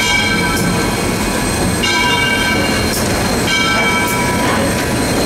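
Southern Railway 630, a 2-8-0 steam locomotive, running slowly, heard from the cab, with a high metallic ringing that comes back about every second and a half to two seconds over the steady running noise.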